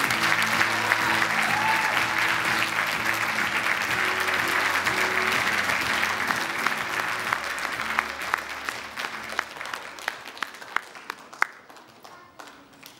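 Audience applauding over music; the applause fades and thins to scattered single claps over the last few seconds.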